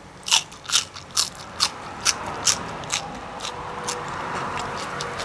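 Crunchy chewing of a raw winged bean pod: sharp crunches about twice a second, growing fainter after about three seconds.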